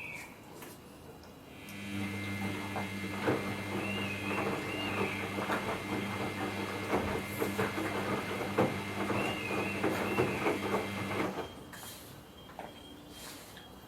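Samsung EcoBubble front-load washing machine turning its drum during the wash: a steady motor hum with many small knocks from the tumbling load. It starts about two seconds in and stops a couple of seconds before the end.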